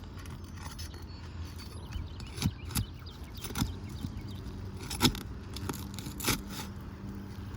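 A metal roofing tool scraping and prying under asphalt shingles to break their sealant bond, with sharp irregular clicks and cracks, the loudest about five seconds in.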